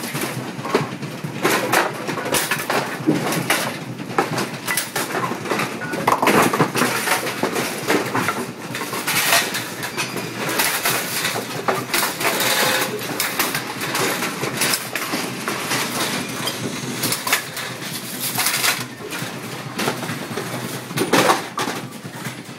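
AMF 8230 bowling pinspotter running: a dense, continuous clatter of knocks, clanks and rattles from its moving metal parts and the pins it is handling.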